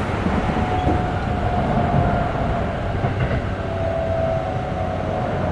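Running noise inside a Keikyu 1500 series motor car fitted with Mitsubishi GTO-VVVF inverter equipment, travelling at speed. A steady rumble of wheels on rail carries a faint, steady whine.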